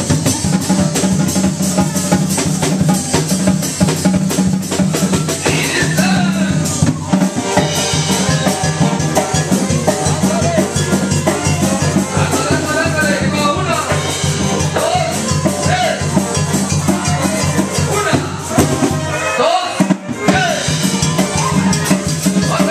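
Loud dance music mixed live by a sonidero DJ over a sound system, with a steady drum beat and a voice over it at times. The bass drops out for a moment about twenty seconds in.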